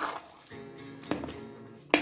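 A spatula scrapes through thick apple halwa in an iron kadai at the start, then faint steady background music plays. A click about a second in and a sharp knock of the spatula on the pan near the end break the music.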